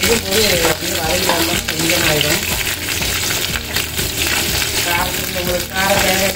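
Green chillies and curry leaves sizzling and spattering in hot oil with mustard seeds and urad dal, stirred with a wooden spatula in a metal pot.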